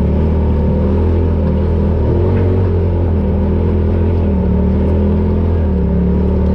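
Polaris RZR Pro XP side-by-side's engine running steadily while driving, its pitch drifting slightly up and down as the throttle varies.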